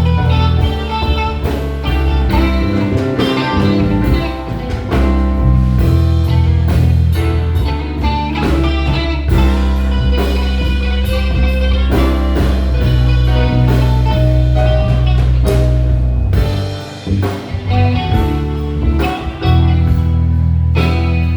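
Live band playing an instrumental passage with no vocals: guitar over electric bass, drum kit and keyboards. The bass drops out briefly about two-thirds of the way through, then comes back in.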